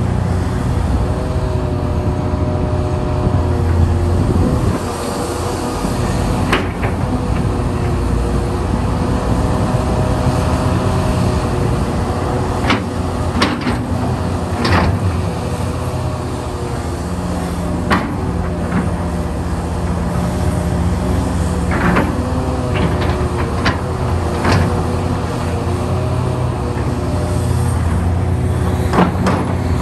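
Hitachi Zaxis 670 hydraulic excavator working under load: a steady diesel engine and hydraulic hum, with sharp knocks and clanks of the steel bucket against rock scattered through, about a dozen in all.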